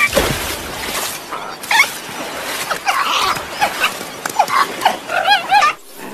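Short, high animal yelps and squeaks from cartoon ball-shaped animals, several scattered calls that rise and fall in pitch, ending in a quick run of three yips, over a steady hiss.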